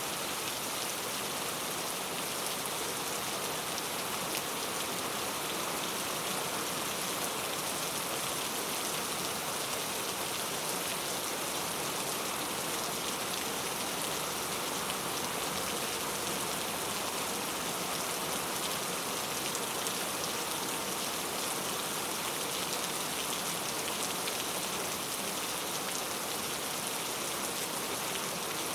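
Steady rain falling on a surface, an even hiss that holds constant throughout.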